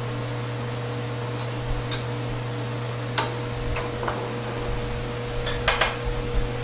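Light clicks and clinks of kitchen utensils against cookware, a few single ones spread out and a quick cluster near the end, over a steady fan hum.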